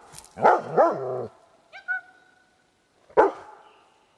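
White shepherd dog barking: a sharp bark, two drawn-out barks, a short whine, then another sharp bark a little after three seconds in.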